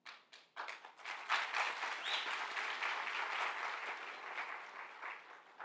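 Audience applauding. The clapping starts about half a second in, builds within a second, and dies away near the end.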